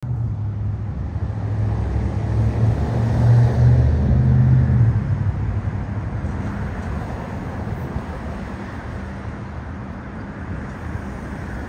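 Low engine hum of a passing motor vehicle, swelling to its loudest about three to four seconds in and then slowly fading.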